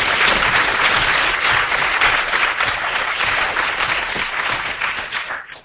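Audience applauding steadily at the end of a talk, the clapping dying away near the end.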